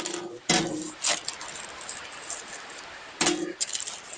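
A bunch of car keys jangling and clinking as they are handled and pulled out of a bag, in a few short bursts.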